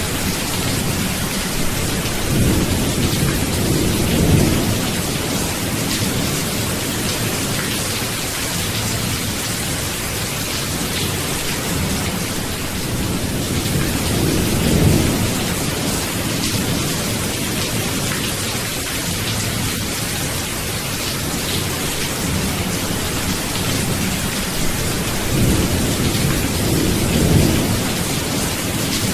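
Steady heavy rain hiss with thunder rolling low and soft three times: a few seconds in, about halfway, and near the end.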